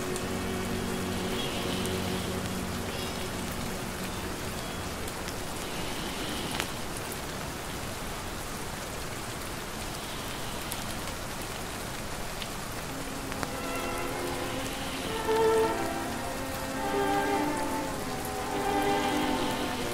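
Steady rain falling, with soft jazz-style music mixed underneath. The music drops away after the first few seconds, leaving only the rain, and comes back in about two-thirds of the way through.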